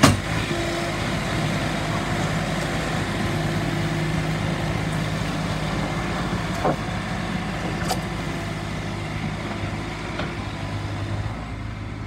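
Bobcat S450 skid steer's diesel engine running steadily as the machine drives, with a sharp knock at the start and a couple of lighter knocks midway.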